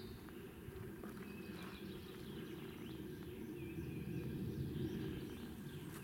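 Small birds giving several short, high chirps, over a steady low rumbling noise.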